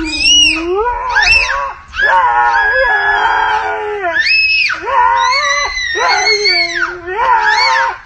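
A husky howling and yowling in long calls that rise and fall in pitch, and a toddler screaming and squealing back, the two trading calls with short pauses between them.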